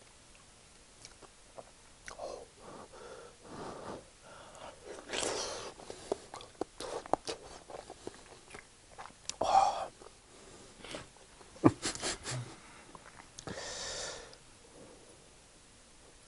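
A person chewing soft scrambled egg close to the microphone, with many small wet mouth clicks and a few louder breaths.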